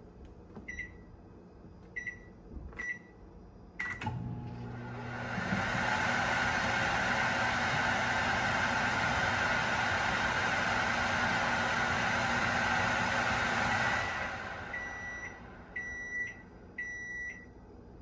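GE JVM3162RJ3SS microwave oven: three short keypad beeps, then it starts up about four seconds in and runs for about ten seconds with a low hum under a loud fan whoosh. It then stops and beeps several times at the end of the cycle.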